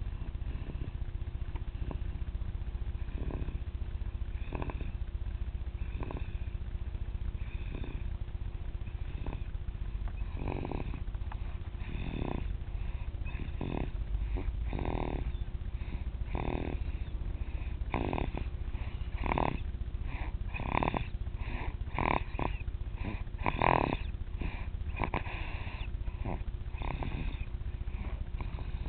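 A sleeping baby snoring, one short snore about every second and a half, growing louder in the second half, over a faint steady hum.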